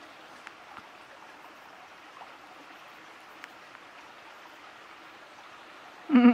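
Steady, even rushing background noise with a few faint ticks. A person speaks one short word right at the end.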